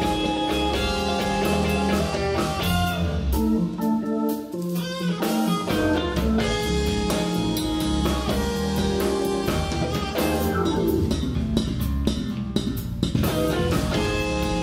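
A live soul-jazz band playing an instrumental groove on electric guitar, electric bass, keyboards and drum kit. The bottom end drops away for about a second around four seconds in, then the full band comes back.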